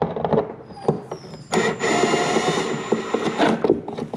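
Power drill running steadily for about two seconds, backing out a mounting screw, with handling knocks and clicks before and after.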